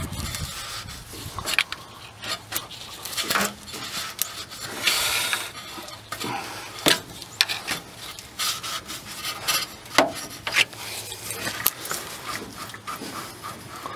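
Rubber coolant hose being twisted and worked off its metal outlet by hand, the stuck hose rubbing and scraping irregularly. There is a longer scrape about five seconds in and a few sharp clicks.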